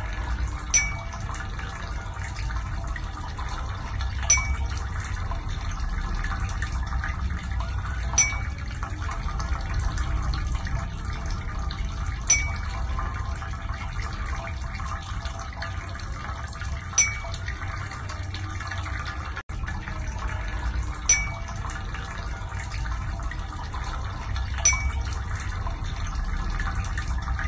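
Steady running-water sound with a short, bright ping about every four seconds.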